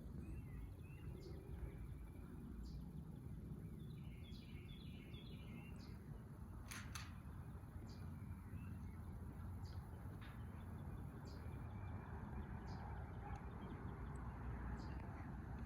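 Outdoor background noise with a steady low rumble, a bird chirping in two short runs, and faint sharp clicks about every second, one louder than the rest about seven seconds in.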